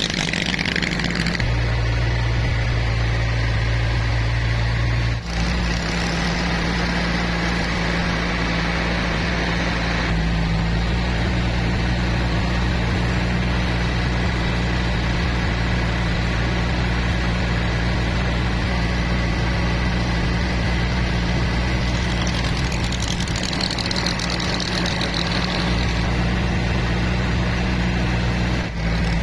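A boat engine running steadily with a low drone as the boat moves along, and water rushing and spraying against the hull at the start.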